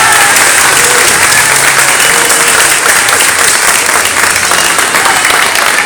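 Audience applauding, steady and loud, just after children finish singing.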